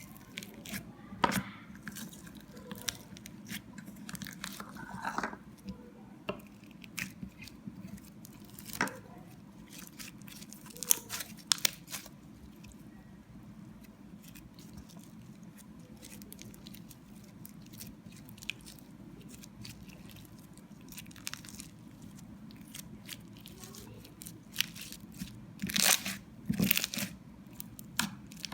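Slime being handled by hand: scattered sticky pops, crackles and tearing sounds as it is pressed and pulled apart, with a busier run of louder pops near the end.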